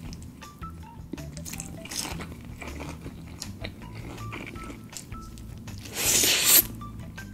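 Close-up eating sounds of crispy fried chicken: small crackles of chewing through the breading, then one loud crunchy bite about six seconds in. Quiet background music plays underneath.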